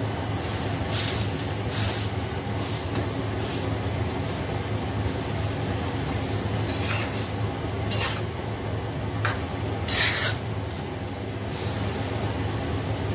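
Metal spatula scraping and stirring noodles and vegetables in a wok, in uneven strokes about a second or more apart, with the loudest scrape about ten seconds in. A steady low hum runs underneath.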